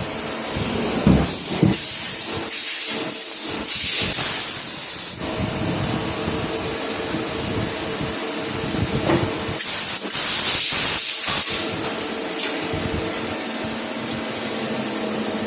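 Automatic CNC machine running with a steady hum, broken by several loud hissing bursts, the longest about four seconds in and another cluster around ten to eleven seconds in.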